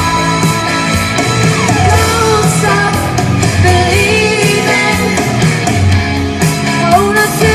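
A singer belting an 80s-style rock song over a loud band backing of drums, bass and guitar, the voice coming in about a second in.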